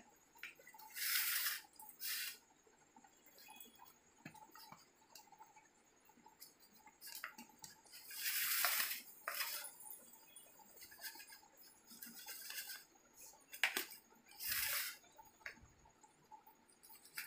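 A knife cutting through a baked pizza on a steel plate: scattered scraping strokes, a few lasting about a second, as the blade saws through the crust against the metal.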